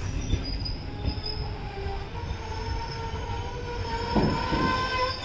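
Passenger coaches of an arriving train rolling slowly along the platform while braking: thin, steady, high metallic squeals over a low rumble of wheels on rail, with a heavier knock about four seconds in.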